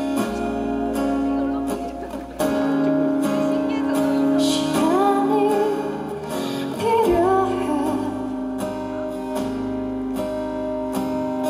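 A song performed live: acoustic guitar strummed steadily, with a woman singing over it through the middle stretch.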